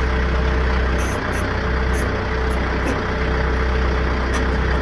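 Branson F Series compact tractor's diesel engine idling steadily, with a few faint ticks.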